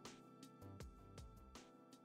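Faint background music with a steady beat.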